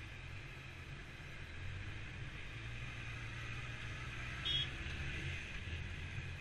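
Motorcycle engine running at a steady pace, with wind and road noise on a helmet-mounted microphone. A short high double beep sounds about two-thirds of the way through.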